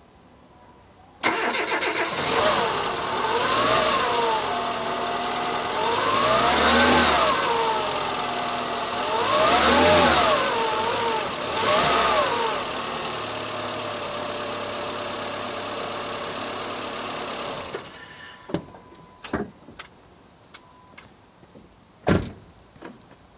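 An engine is cranked and starts about a second in. It revs up and down about four times, then runs steadily and is switched off a few seconds before the end. A few sharp knocks follow.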